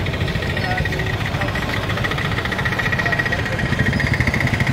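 An engine running steadily: a low rumble with a steady high-pitched tone above it.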